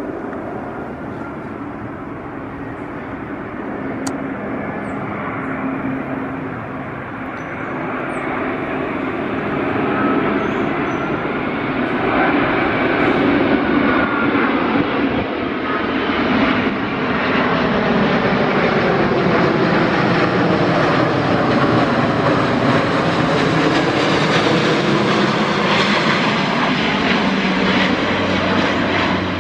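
Airbus A350-900 airliner's Rolls-Royce Trent XWB jet engines on its landing approach: a steady jet rush with a faint whine that grows louder over about the first fourteen seconds, then stays loud.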